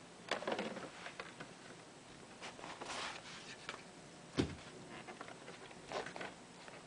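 Hands handling small hardware: a run of clicks, rattles and rustles, with one sharper knock about four and a half seconds in.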